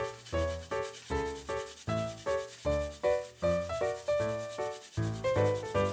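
Garlic cloves rubbed back and forth on a metal grater, a steady raspy grating, under background music of short keyboard-like notes.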